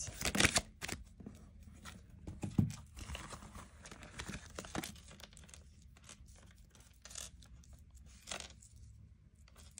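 Tarot cards being shuffled and handled: irregular soft rustles and taps, with the loudest handling in the first second and a few sharper bits later on.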